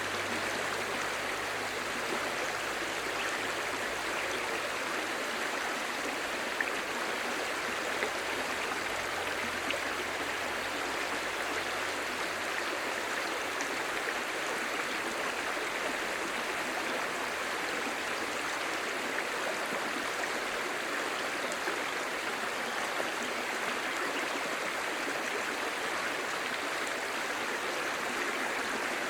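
Clear, shallow stream babbling steadily over stones, an even rush of water with no breaks.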